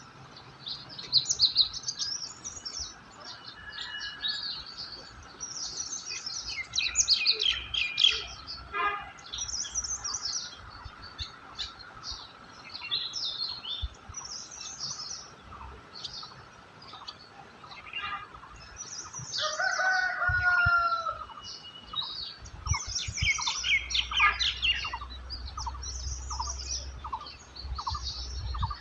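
Several songbirds chirping and twittering together in quick, overlapping high calls. About twenty seconds in, a longer, lower call slides down in pitch. Near the end, a bird repeats a short note at an even pace.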